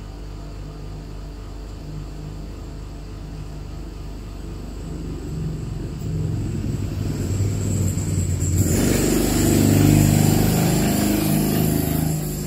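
A motor vehicle's engine running and growing steadily louder. About eight and a half seconds in, a louder rushing noise joins it, and both ease off near the end.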